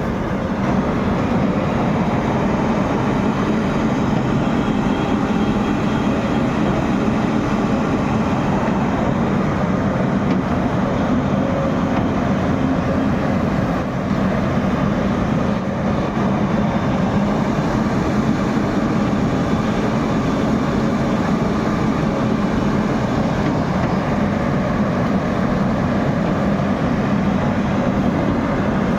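Excavator's diesel engine running steadily at working speed: a loud, continuous mechanical drone with no breaks.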